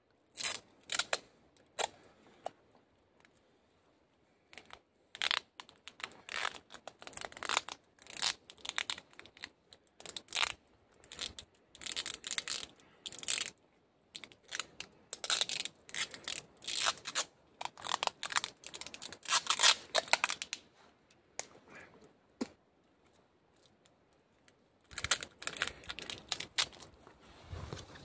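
Sticky tape being ripped off the roll in short, irregular bursts with rustling, as a pair of shorts is taped into a makeshift bag. The bursts are busiest through the middle, pause briefly near the start, thin out for a few seconds, then pick up again near the end.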